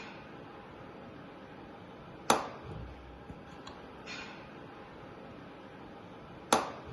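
Two sharp knocks about four seconds apart, with a few fainter ticks between, over a steady low room hum: parts being handled and set down during an automatic transmission teardown.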